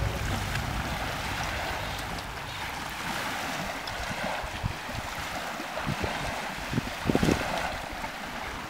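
Lake water lapping, with wind rushing on the microphone: an even rush that slowly fades out, with a few soft low bumps about six to seven seconds in.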